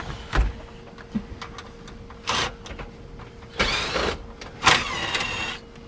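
Cordless DeWalt drill-driver backing out dash screws, in three short runs whose motor whine rises and falls in pitch, the last about a second long. Small clicks and rattles of tools and parts come between the runs, over a steady hum.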